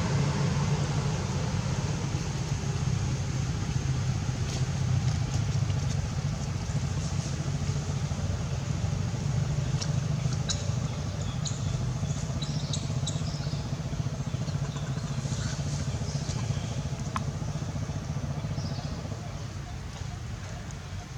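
A steady low engine rumble, like a motor vehicle running, with a few short high squeaks or chirps about halfway through.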